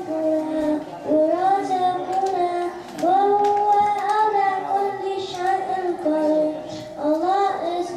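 A man singing a melodic chant into a handheld microphone, holding long, gliding notes in phrases with short breaks between them.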